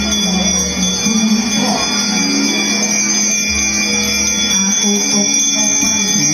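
Several brass hand bells ringing continuously, a high sustained tinkle, with music and a low steady tone underneath.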